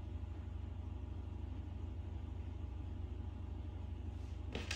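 Steady low hum, with two short, soft noises near the end.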